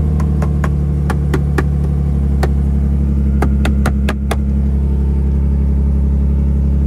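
Lexus IS300's 2JZ-GE inline-six idling steadily just after being started. A series of sharp, irregular clicks sounds over it through the first four seconds or so.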